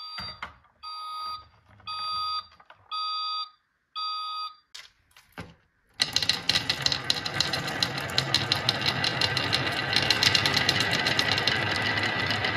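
A series of evenly spaced electronic beeps, about one a second, as a countdown. About six seconds in, a crowd of marbles is released and rolls down a wooden serpentine marble-run slope in a dense, continuous clatter of clicks.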